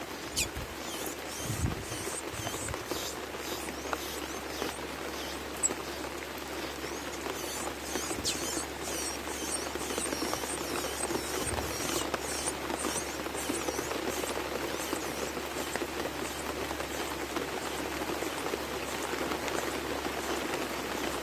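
Steady outdoor noise with a run of short, high chirps from about eight to fourteen seconds in.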